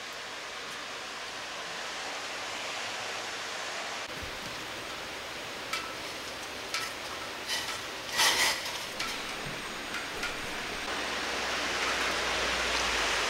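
Pot of water boiling on a portable butane gas stove: a steady hiss and bubbling that slowly grows louder as the boil builds. A few short clicks and knocks in the middle, the strongest a little past halfway, as noodles go into the pot.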